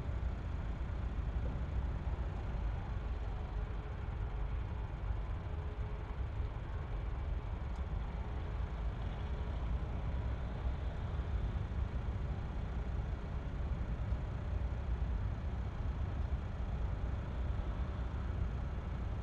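Distant Boeing 737 airliner taxiing on idle power: a steady low rumble with no change in pitch or level.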